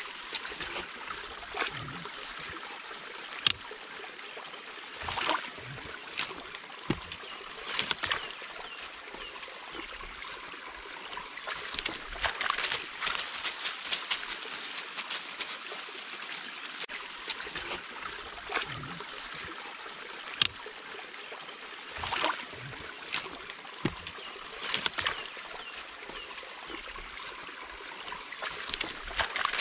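Dog splashing and pawing in a muddy woodland puddle and tugging at sticks, giving repeated short sharp splashes and cracks over a steady trickle of running water.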